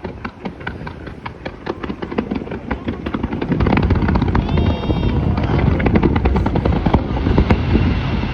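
Fireworks display: a rapid, dense run of crackling pops, then from about three and a half seconds in a louder barrage of overlapping bursts that rumbles on.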